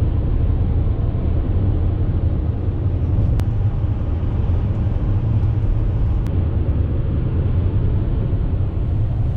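Steady low rumble of a car driving at highway speed, heard from inside the cabin: tyre and engine noise on the road.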